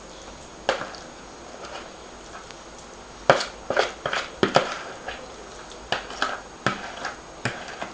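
A metal spoon scraping and knocking against a plastic bowl as soft curd cheese is scooped out onto cake batter: a series of short clicks and knocks, more frequent from about three seconds in.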